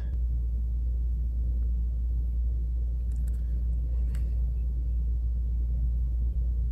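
Steady low background hum, with a few faint light clicks from small parts being handled: a distributor advance weight and a tube of cam lubricant.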